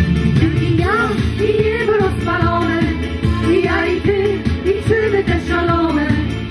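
A mixed vocal group sings a Polish pop-folk song over amplified backing music with a steady beat.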